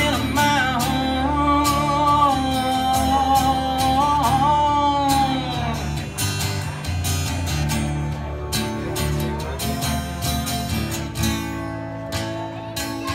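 Acoustic guitar strummed with pedal steel guitar in a live country song. Long gliding, bending notes are held through the first half, then ease off about six seconds in, leaving the strummed guitar and lower steel notes.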